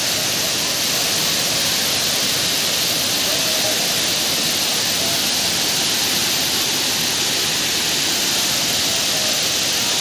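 Waterfall: white water pouring down a rocky cascade, a loud, steady, even rush.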